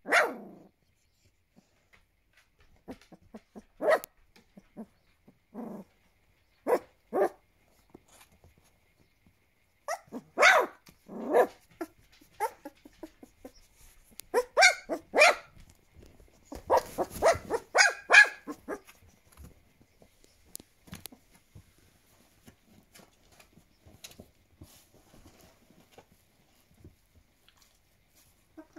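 Two-and-a-half-week-old puppy giving short, high yelps and squeaky little barks, spaced out at first and then coming thick and fast about halfway through. After that there is only faint scuffling.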